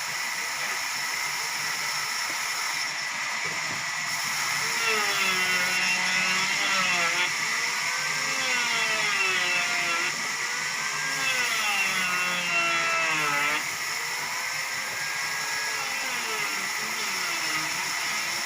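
Sawmill saw running through a log, a steady high whine with a lower pitch that rises and falls as the load on the blade changes. It gets louder about four seconds in and drops back near the middle.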